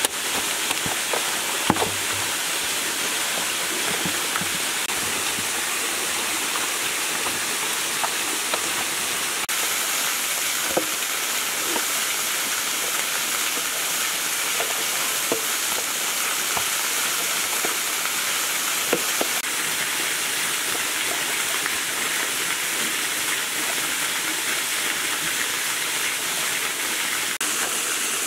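Steady rush of a small waterfall, with a few short clicks here and there.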